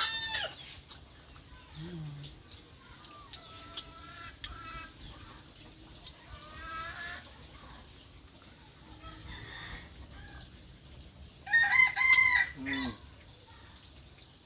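Roosters crowing. One loud crow comes about twelve seconds in and ends on a falling note, with fainter crows from farther off earlier.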